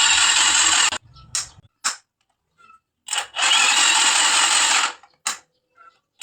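A drill-like motor whirring in two bursts of about a second and a half, one at the start and one about three seconds in, with a few short clicks between them.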